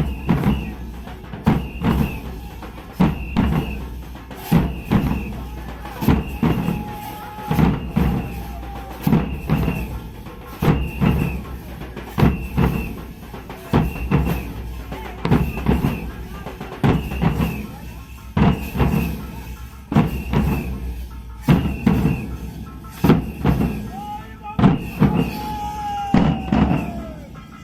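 Dhak, the large Bengali barrel drum, beaten with sticks in a fast repeating rhythm, its loud strokes coming in groups about every second and a half. A faint held tone slides downward twice.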